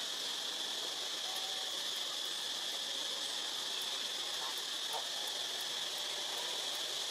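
Steady, high-pitched drone of forest insects, one even whine that holds unchanged throughout. A few faint brief calls sound lower beneath it.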